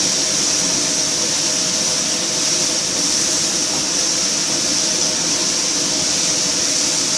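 Mushrooms and onions frying in oil in a pan, giving a steady, even sizzling hiss, with a faint steady hum underneath.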